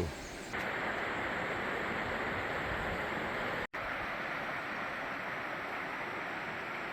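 Steady rush of flowing spring water, with a short break a little past halfway where the sound cuts out for an instant.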